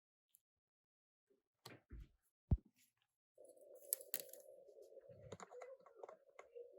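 Faint clicks and taps of small phone parts and tweezers being handled and pressed into place, with one sharper tap about two and a half seconds in. A faint steady hum comes in about halfway.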